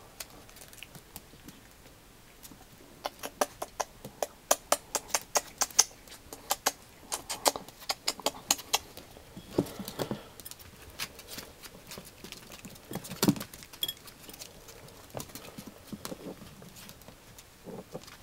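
Dachshund puppies' claws and kibble making sharp clicks and taps on a hardwood floor and in a food bowl. There is a quick run of clicks, about three or four a second, in the first half, then scattered clicks and one louder knock.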